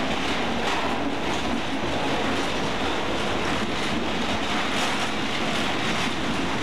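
New York City subway car running on the tracks, heard from inside the car: a steady rumble and rattle with faint clacks now and then.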